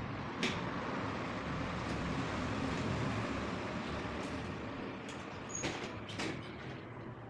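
A folding bicycle being handled over a steady background hum: a sharp click about half a second in as the rack-mounted bag's latch lever is released, then two sharp clacks near six seconds as the Brompton's rear wheel swings under to fold.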